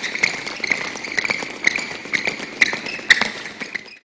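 Badminton court shoes squeaking and feet tapping on the court during a fast-feet footwork drill: many quick, irregular short squeaks mixed with footfalls, cutting off suddenly near the end.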